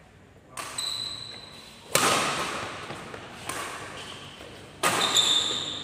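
Badminton rally: rackets striking the shuttlecock with about six sharp cracks, one to one and a half seconds apart, each echoing in the hall, a couple of them followed by a brief high ringing tone.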